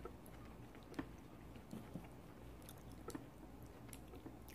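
Faint close-miked chewing of food with the mouth closed, with a few soft clicks and wet mouth sounds, the clearest about a second in and twice more near the end.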